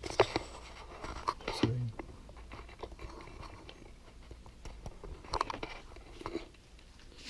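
Handling noise of small wires and a plastic plug connector: scattered clicks and short rustling scrapes as a camera lead is plugged into a small FPV video transmitter.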